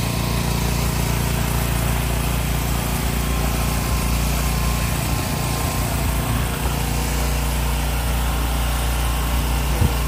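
An engine running steadily, a low even drone, with a single short knock near the end.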